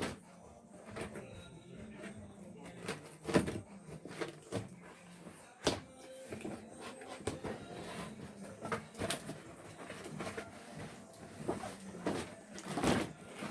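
Toy packaging being handled and pulled at: irregular rustles, clicks and knocks of plastic and cardboard as it resists opening, with sharper knocks about three and a half seconds and nearly six seconds in.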